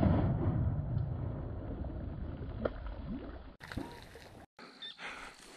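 The lingering low rumble and echo of a shotgun blast from a Stoeger M3500 semi-automatic shotgun, fading away over about three seconds, with a couple of faint clicks. The rumble then gives way to quiet open-marsh background.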